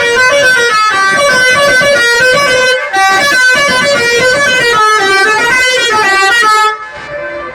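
Bus basuri musical horn playing a fast tune in quick stepped notes. It breaks off briefly just before three seconds in, then carries on until it drops away to quieter scattered tones near the end.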